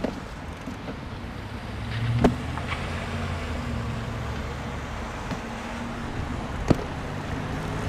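Passing traffic heard from a bicycle on a wet road: a pickup truck's engine hums steadily as it crosses in front, over steady wind and road noise. Two sharp clicks come about two seconds in and near the end.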